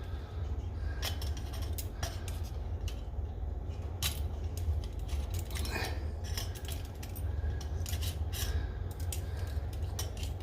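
Small metal parts of a Coleman 530 pocket stove clicking and clinking as they are handled and fitted together: scattered light taps and ticks over a low, steady hum.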